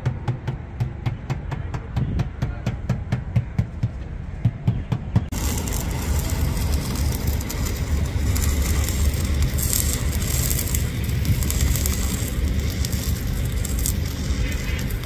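Machinery noise: a rapid even ticking, about five a second, over a low hum, then after an abrupt change about five seconds in, a steady low engine-like rumble with hiss.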